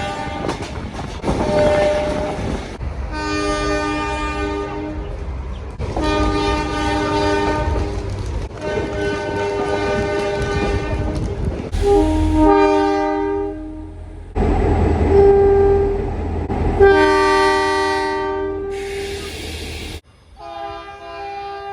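Locomotive air horn sounding several notes at once as a chord, in a series of blasts a second or two long, over the low rumble of the train. About twenty seconds in the sound cuts off abruptly and another horn blast follows.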